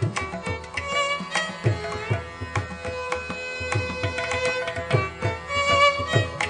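Instrumental Indian classical background music: hand-drum strokes in a steady rhythm under a melody, over a held drone note.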